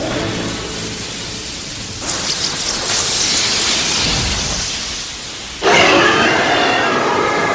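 Anime lightning-attack sound effects for Sasuke's Kirin: a storm-like rushing noise that swells into a hissing crackle about two seconds in and fades. A sudden loud burst about five and a half seconds in carries a ringing, tonal layer as the lightning beast strikes.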